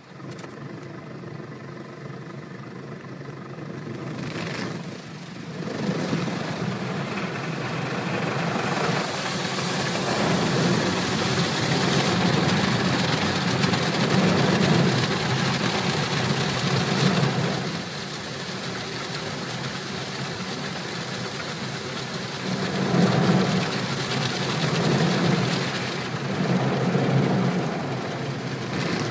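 Water jets of an automatic car wash spraying against the car's windshield and body, heard from inside the car as a steady rush that swells louder and eases off several times as the spray passes over.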